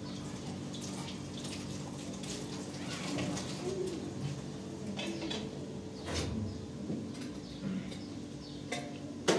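Kitchen work: scattered knocks and clinks of pots and dishes, with a sharp knock near the end, over a steady low hum.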